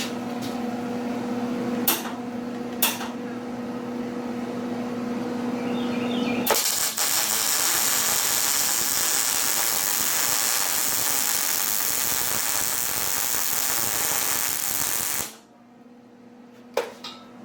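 A steady hum with two clicks, then a MIG welding arc strikes about six seconds in: a loud, steady hiss for about nine seconds as a solid weld bead is laid on steel, cutting off suddenly near the end.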